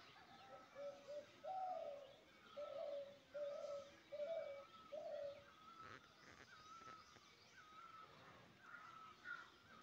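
A dove cooing: a run of about six low coos in the first half-second to five and a half seconds, then it stops. Small birds chirp repeatedly throughout.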